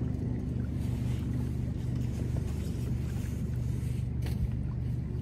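Fishing boat's motor running steadily underway, a constant low drone with a faint wash of water and wind over it.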